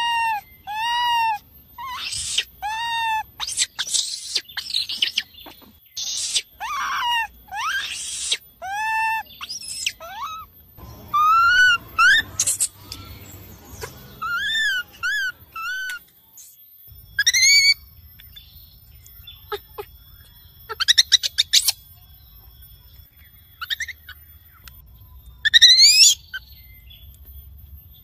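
Baby macaque screaming with high, rise-and-fall calls, about one a second at first, then fewer calls with quick runs of short cries toward the end. This is a young monkey's call to its mother, used as a lure call.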